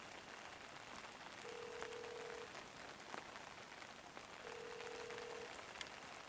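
Mobile phone ringback tone, a steady tone about a second long that repeats every three seconds, heard twice, faint over a steady hiss. It means the called phone is ringing unanswered.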